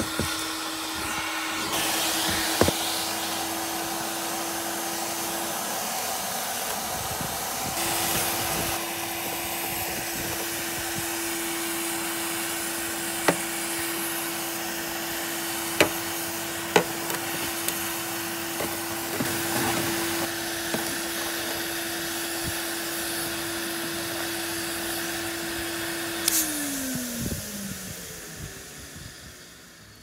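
PYE BV6 vacuum cleaner running with a steady motor hum while vacuuming car carpet, with a few sharp clicks along the way. About 26 seconds in it is switched off with a click, and the motor winds down with falling pitch.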